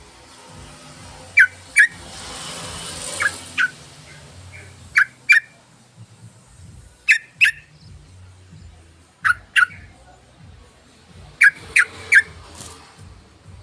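Yellow-vented bulbul (trucukan) calling in short, sharp notes, mostly in pairs, a pair roughly every two seconds, with a triple near the end. A brief hiss comes about two seconds in.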